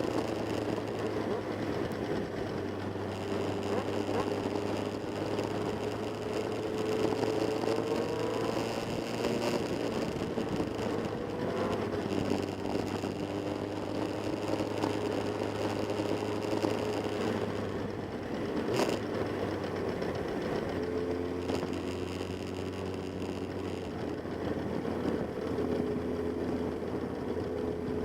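Motorcycle engines running, mostly idling with slow rises and falls in pitch as the throttle moves; a sharp click about 19 seconds in.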